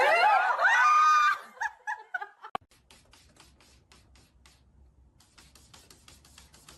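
A person laughing loudly for about a second and a half, then a few short trailing laughs. After a sharp click, faint rapid clicking follows.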